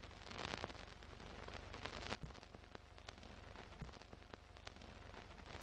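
Faint crackle and hiss with scattered small pops and clicks, the old-film crackle laid under an animated countdown leader.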